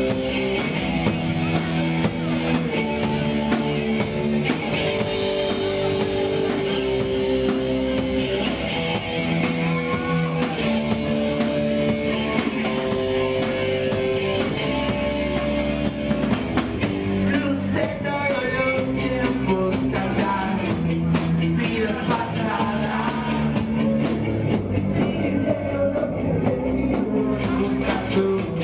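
Live punk rock band playing: electric guitar and drum kit, with a voice singing.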